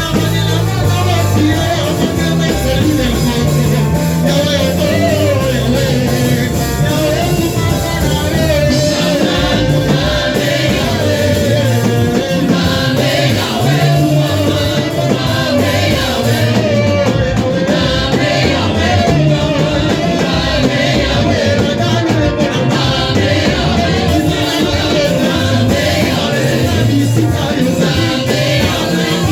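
Gospel worship music: singing over a full band with a repeating bass line, continuous and loud.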